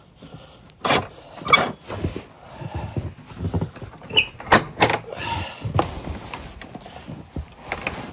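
Scattered clunks and knocks from equipment being handled and shifted, with a short high squeak about four seconds in.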